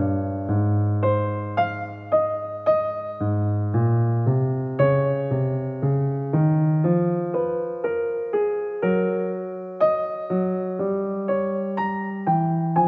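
Solo piano background music: a slow, gentle melody of single struck notes over held chords, each note dying away after it is struck.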